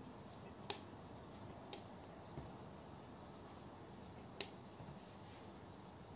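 A few sharp, scattered clicks of a modded spinning pen knocking against the fingers as it is spun and caught. The two loudest come just under a second in and about four and a half seconds in, over a faint steady hiss.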